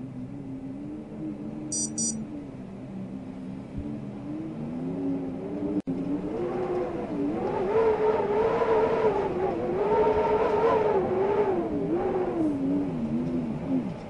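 Wind howling: a wavering moan that rises and falls in pitch and grows louder in the second half, with a split-second dropout just before it swells.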